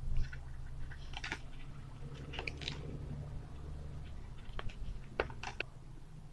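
Hard plastic lid and wire fittings handled by hand: a few scattered light clicks and crackles over a low steady hum.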